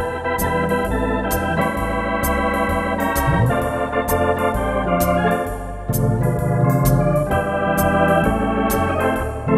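Wersi Atlantis electronic organ played with a drawbar organ registration in a swing style. Held chords on the manuals sound over a walking pedal bass that changes note about every half second, with regular drum and cymbal ticks keeping time.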